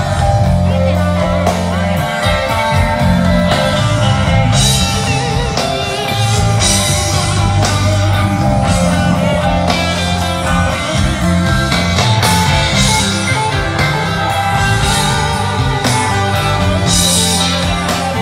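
Live rock band playing amplified on an outdoor stage: electric guitars, bass and drums with cymbals, and a singer.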